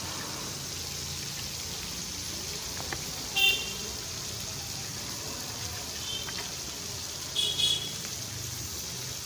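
Onions frying in oil in a pan with a steady sizzle. Short high-pitched toots cut in about three and a half seconds in, and twice more in quick succession near the end.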